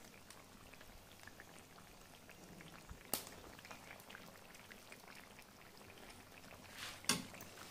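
Pork and banana-stem stew simmering in a wok, heard faintly as bubbling with small pops and ticks. A sharp click comes about three seconds in, and a louder one near the end.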